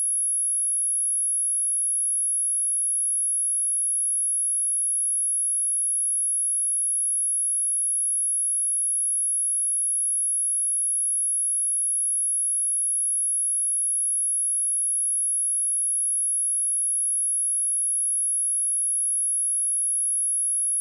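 Continuous high-pitched pure sine-wave test tone at 10741 Hz, held steady at one pitch and level, used for speaker testing and speaker cleaning.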